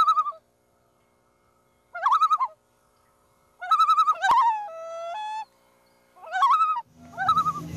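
A bird calling in five short, wavering, rapidly pulsing bouts, with a lower held note after the third. Music comes in near the end.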